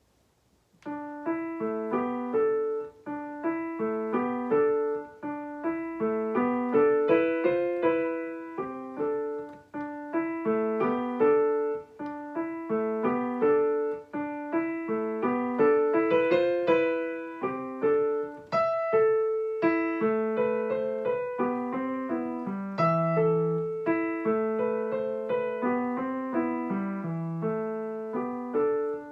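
Yamaha digital piano in a piano voice playing an elementary graded piano piece with both hands: a steady, even flow of single melody notes over a simple accompaniment, starting about a second in.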